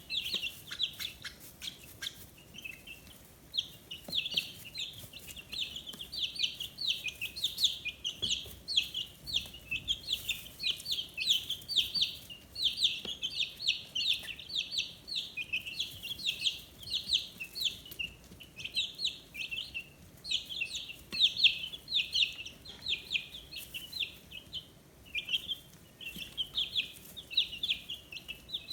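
A brood of 15-day-old chicken chicks peeping continuously: many short high chirps overlapping, each dropping in pitch, with a brief thinner spell about two seconds in.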